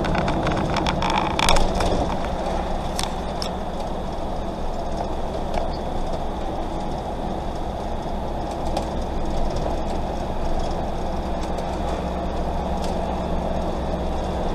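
A camper van's engine and tyre noise heard from inside the cab while it drives at a steady pace, a low even drone. A few sharp clicks sound in the first few seconds.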